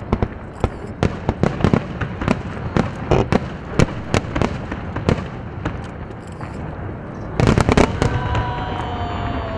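Aerial firework shells bursting: a rapid, irregular series of sharp bangs and crackles, with a dense cluster of loud bursts about seven and a half seconds in.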